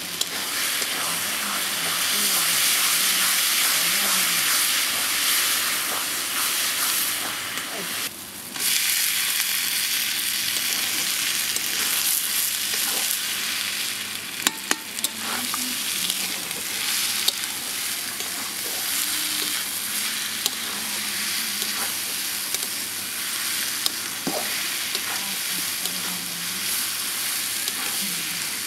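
Food sizzling in hot oil in a pan while it is stirred, with a brief dip about eight seconds in and a few sharp clicks in the middle.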